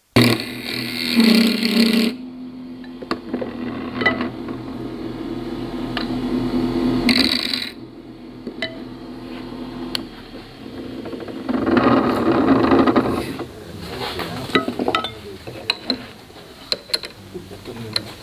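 Wood lathe running with a steady motor hum while a hand-held turning tool cuts the spinning ash blank in bursts of cutting noise, loudest at the start and about twelve seconds in. Near the end the cutting stops and a scatter of light clicks follows as the lathe comes to rest.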